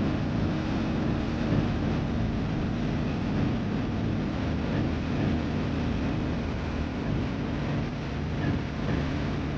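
Segway AT5 ATV running steadily under way, its engine and drivetrain noise mixed with an even rush of road and wind noise.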